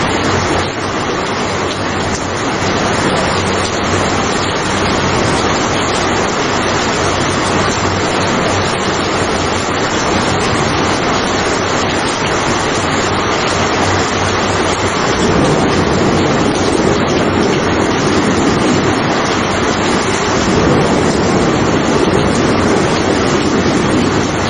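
Steady rain, an even continuous hiss, with two low rumbles of thunder swelling up in the second half.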